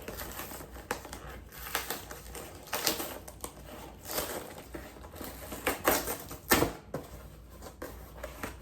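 Pin packaging being opened and handled by hand: irregular crinkling, rustling and small clicks, with the loudest crackle about six and a half seconds in.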